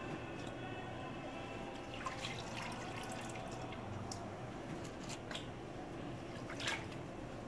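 Liquid dripping off a freshly dipped candle back into the dipping vat: a few scattered drips and light taps over a steady low hum.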